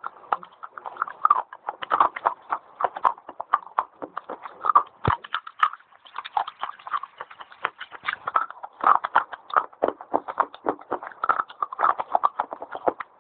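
Fast crunching as a person bites and chews dry white clay pieces: quick, irregular crunches several a second, with one dull thump about five seconds in.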